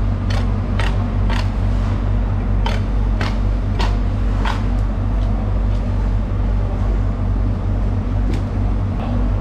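A steady low machine hum throughout, with short sharp clicks and scrapes of a large knife working along a bluefin tuna's rib bones on a wooden board, about two a second for the first half and only a few scattered ones after.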